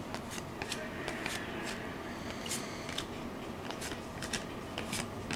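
Football trading cards being handled and flipped through one after another: scattered light clicks and slides of card stock.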